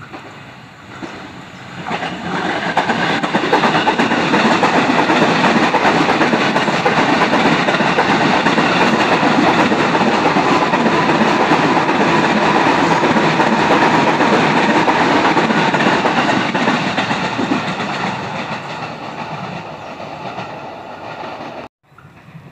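KRL electric commuter train passing close by, its wheels clattering over the rail joints. It builds about two seconds in, stays loud for most of the pass, fades near the end, then breaks off abruptly.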